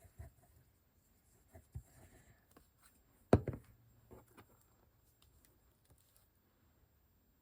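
Paper and card being handled and pressed down on a tabletop while a page is glued in place: soft rustles and light taps, with one sharper knock about three seconds in.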